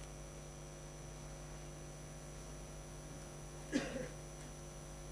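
Steady low electrical hum, with one short, louder sound a little under four seconds in.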